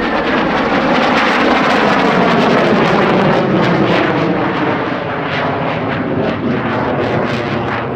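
Alenia Aermacchi M-346 jet trainer's twin turbofan engines passing overhead in a display flyby: a loud, crackling jet noise with a whine that falls in pitch as the aircraft goes by, easing off toward the end.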